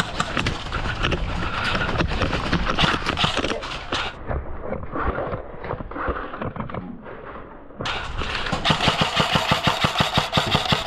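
Airsoft rifle firing on full auto: a long, rapid, evenly spaced stream of shots that starts near the end. Before it there is a jumble of knocks and clatter that turns dull and muffled for a few seconds.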